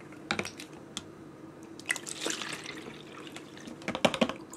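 Water poured from a large plastic bottle into a smaller bottle, splashing in short bursts among sharp clicks and crackles of the plastic, loudest about four seconds in.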